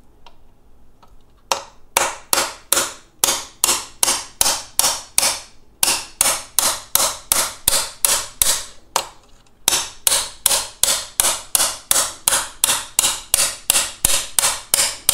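Hammer blows pounding the pedal pin out of an electric unicycle's pedal mount: sharp strikes, about three a second, with two short breaks, and the pin is really in there.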